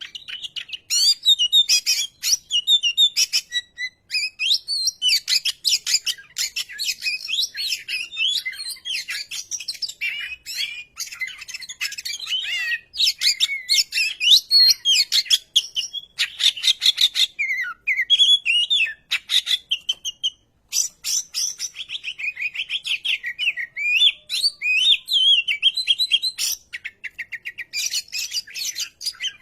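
Oriental magpie-robin singing a long, varied song of fast gliding whistles and rapid chattering rattles, broken by short pauses.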